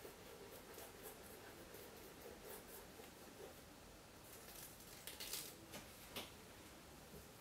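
Near silence, with faint soft rubbing and light taps of fingers working cold wax and oil paint on a painting panel. A few short clicks come about five and six seconds in.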